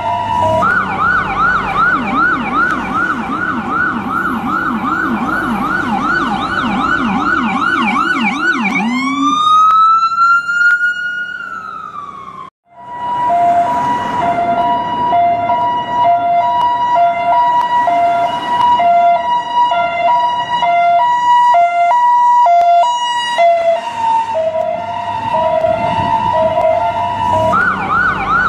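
US ambulance siren switching between modes. It yelps with fast rising sweeps, about four a second, then sounds one wail that climbs and winds down before cutting out briefly. It then alternates hi-lo between two pitches, faster for a while, and goes back to yelping near the end.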